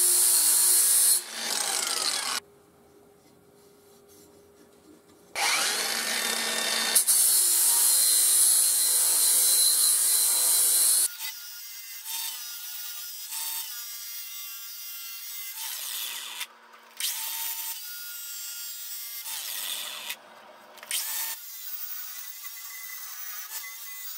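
Cordless angle grinder with a flap wheel sharpening the edge of a steel mower blade, in passes. There is a loud grind, a pause of about three seconds, another long loud grind, then lighter, quieter passes with the motor's whine showing through.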